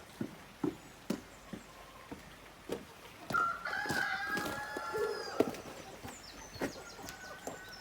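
A rooster crowing once, a long call of about two and a half seconds starting a little over three seconds in. Short sharp sounds come before it, and faint high chirps near the end.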